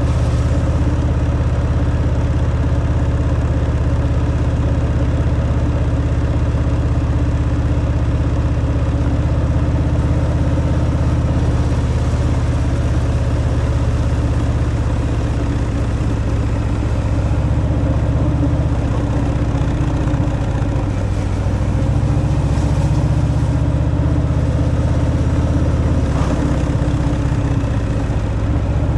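Harley-Davidson Fat Boy's V-twin engine on its stock exhaust, running steadily under way, its pitch shifting a few times in the second half as the speed changes.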